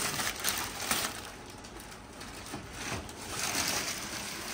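Plastic wrapping bag crinkling and rustling in irregular bursts as it is pulled off and bunched up.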